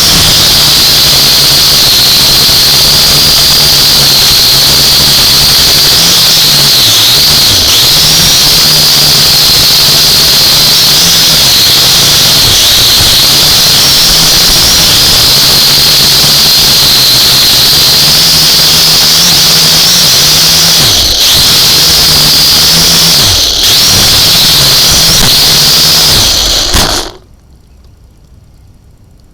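Quadcopter drone's electric motors and propellers whining loudly, their pitch wavering with throttle changes and dipping twice late on, then stopping abruptly near the end.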